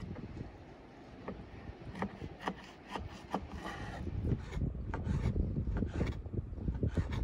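Kitchen knife slicing raw beef kidney, the blade knocking on a wooden cutting board in a run of irregular taps.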